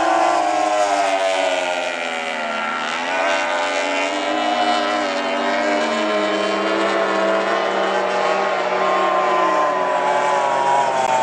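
Racing outboard engines on two tunnel-hull powerboats running at high revs. Their note falls and eases off about two seconds in, then climbs back up and holds high as the boats race on, dropping again near the end.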